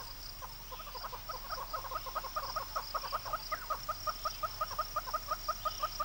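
Red-billed hornbill calling: a long, rapid run of clucking notes, about six a second, getting slightly quicker. A steady high-pitched insect drone sits behind it.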